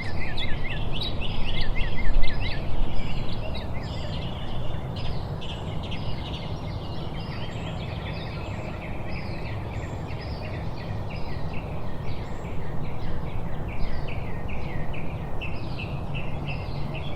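Small birds chirping busily, many short rapid calls overlapping, over a steady low background noise.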